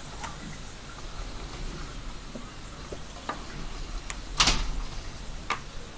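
A few light clicks and knocks of plastic parts being handled, with a louder, slightly longer scrape about four and a half seconds in, as the keyboard's circuit board is worked out of its plastic back case.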